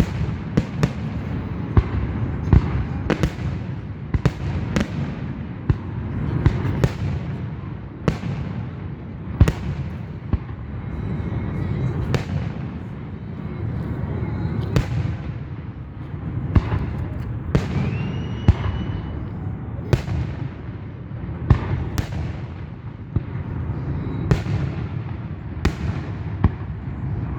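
Aerial fireworks shells bursting in a rapid, irregular string of sharp bangs over a low continuous rumble, with a rising whistle about two-thirds of the way through.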